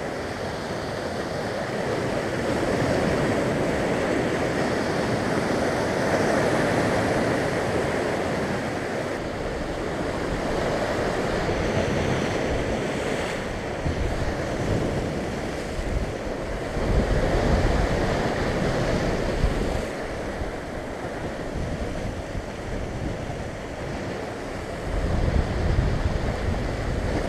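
Sea waves breaking and washing over a rocky shoreline, the surf swelling and falling back in an unbroken rush. Gusts of wind rumble on the microphone about two-thirds of the way through and again near the end.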